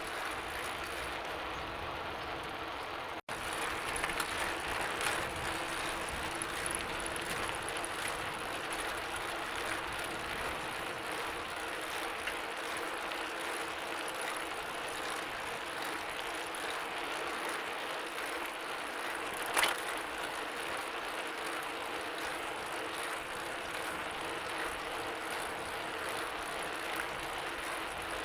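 Bicycle being ridden: a steady mechanical whirr with ratcheting ticks from the chain and gears. It cuts out for an instant a few seconds in, and there is a single sharp click about two-thirds of the way through.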